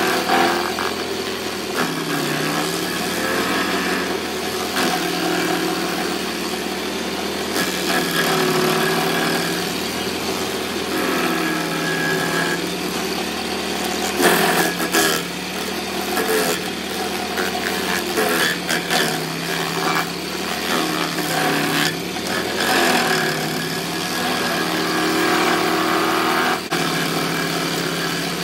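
Walk-behind stump grinder running under load, its cutting wheel grinding out a golden cane palm cluster. The engine's pitch dips and recovers over and over as the wheel bites, with short bursts of chipping noise.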